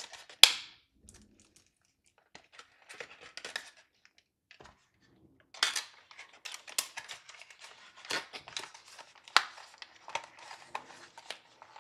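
Clear plastic packaging tray being handled: a sharp plastic click about half a second in, then scattered crinkles and clicks of the plastic.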